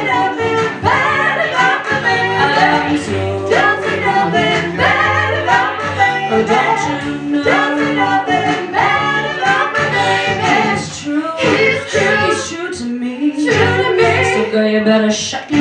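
Female vocal trio singing in close harmony in a 1960s doo-wop style, over music with a sustained bass line and a steady beat.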